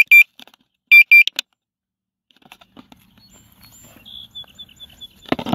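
Potensic Atom drone controller beeping its return-to-home alert: two pairs of high, loud double beeps, one second apart, that stop about a second and a half in. A burst of rustling comes near the end.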